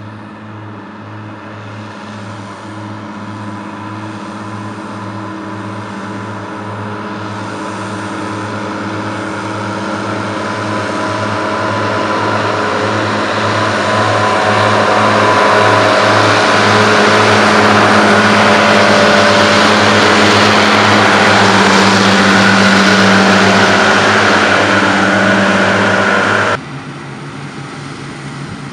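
New Holland tractor engine running steadily under load, growing louder as it approaches. Near the end the sound cuts abruptly to the quieter, steady engine noise of Claas combine harvesters.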